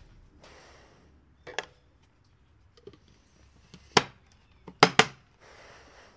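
Manual rotary screen-printing press being worked: sharp clacks and knocks, two close together near the end being the loudest, with three soft scraping strokes of about half a second in between.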